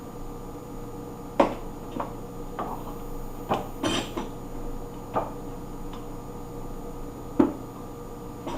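Containers and utensils being handled and set down on a tabletop: a string of separate knocks and clinks, about seven in all, the sharpest about a second and a half in and again near the end, with a small clatter in the middle.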